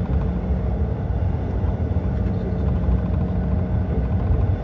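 Steady low rumble inside the cabin of a CRJ-900 regional jet after landing, with its rear-mounted turbofan engines running at idle and a faint steady hum on top.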